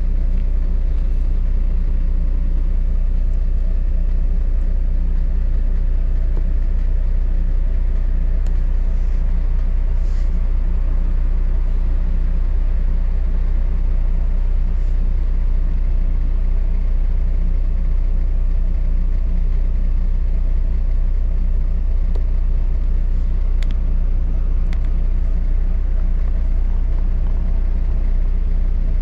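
Steady low rumble of a moving bus, heard from inside the passenger cabin, with a faint steady hum and a few light clicks or rattles.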